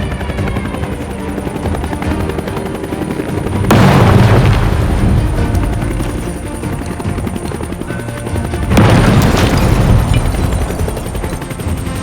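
Background music with two loud booms, one about four seconds in and another about nine seconds in, each fading over about a second.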